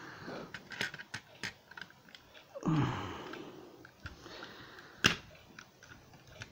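Scattered small clicks and scrapes of a screwdriver working at tightly set screws that hold a model limousine to its packaging base, with a strained, falling groan of effort a little under a third of the way in.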